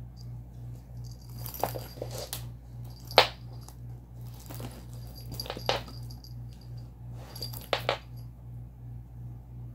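Small bell on a kitten's collar jingling in four short bursts as it tumbles and pounces, mixed with scuffs and a sharp knock about three seconds in. A steady low hum runs underneath.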